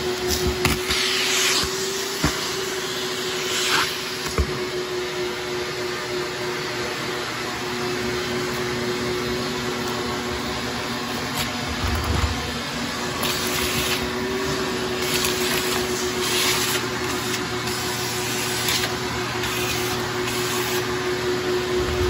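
A ten-gallon Shop-Vac wet/dry vacuum running steadily, its motor giving a constant whine over the rush of air, with occasional short clicks and rattles.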